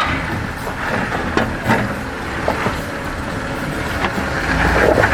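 A steady vehicle rumble, like an off-road motor running, broken by a few sharp clicks and swelling slightly near the end.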